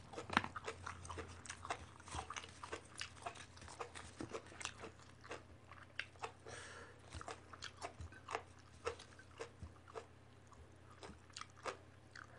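Quiet, close-up chewing and crunching of Isan sausage with raw vegetables: irregular sharp crunches and mouth clicks, several a second, thinning out near the end.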